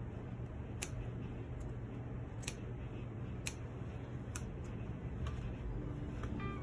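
Small scissors snipping into denim jeans: a series of sharp clicks, roughly one a second, over a low steady hum.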